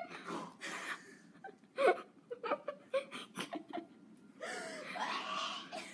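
Young girls giggling and laughing quietly in short bursts, then a longer, louder breathy laugh about four and a half seconds in.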